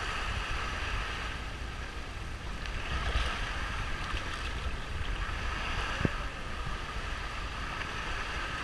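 Shallow surf washing and lapping around the boat, with wind buffeting the microphone as a steady low rumble. A single sharp knock sounds about six seconds in.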